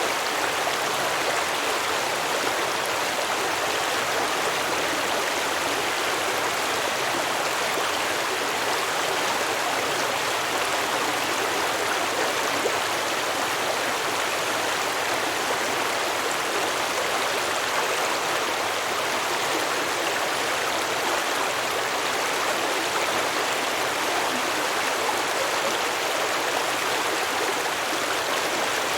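Stream water flowing and babbling over rocks, a steady rushing with no breaks.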